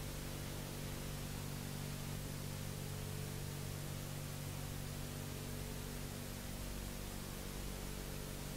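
Steady hiss with a low electrical hum and a few faint steady tones beneath it, with no programme sound: the background noise of an old analogue videotape transfer.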